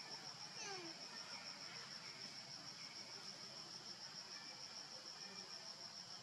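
An insect's steady, high-pitched pulsing trill, cricket-like, over faint outdoor hiss. A brief falling whistle comes in about half a second to a second in.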